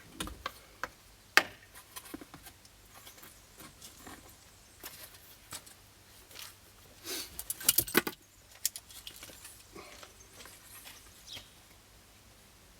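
Hand-work handling noise: scattered clicks, taps and light rustles as cut pieces are fitted and trimmed in a window opening. A sharp click comes about a second and a half in, and a quick cluster of knocks comes about two thirds of the way through.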